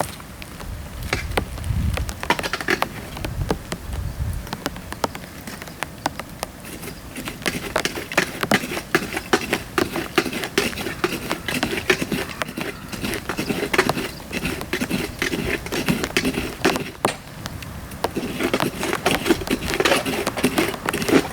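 Dry bamboo burning in a campfire, crackling with many sharp pops and snaps.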